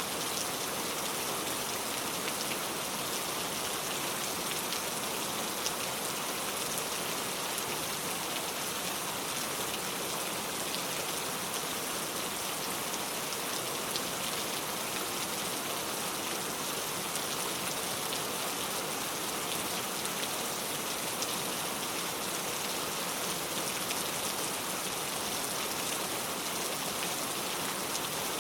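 Steady rain falling on a surface: an even hiss dotted with many small drop ticks.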